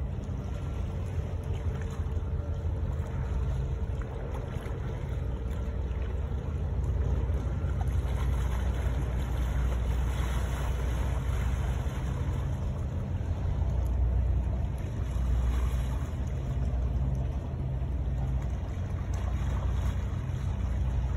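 Small waves washing against a rocky shore over a steady low rumble.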